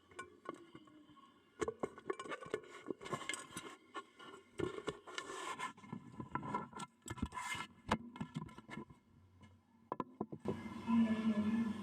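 Small clay toy cooking pots and utensils knocking, clinking and scraping against one another in irregular handling.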